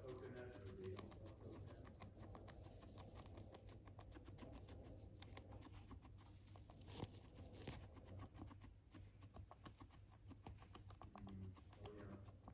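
Guinea pig chewing fresh grass blades: a faint, fast run of small crunching clicks, with a couple of louder snaps about seven seconds in.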